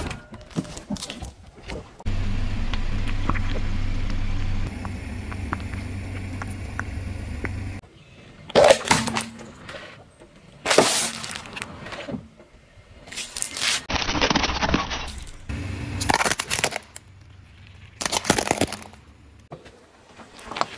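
A car tyre rolling over and crushing objects on asphalt: a series of short crunching, crackling bursts every couple of seconds, with a steady low car rumble running for several seconds about two seconds in.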